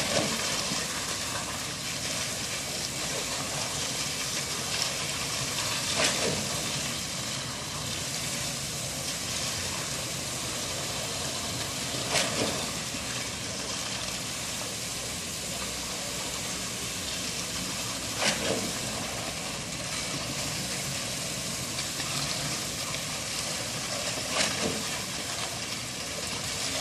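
Construction machinery engine running steadily, with a short sharp sound about every six seconds.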